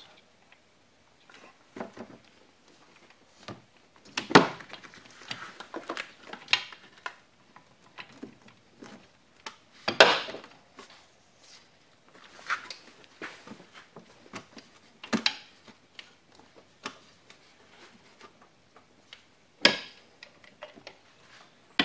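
Metal hand tools clanking and clicking under the hood as a half-inch socket bar is fitted and worked on a tight bolt. The knocks come at irregular intervals, with four sharper ones spread through.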